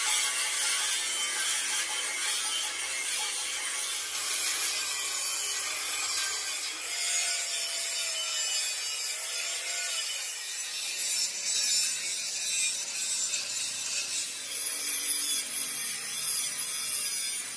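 Handheld angle grinder with a cut-off disc slicing through thick steel plate: a continuous high-pitched hiss of the disc cutting the metal, the motor's note wavering in the middle as the cut loads it.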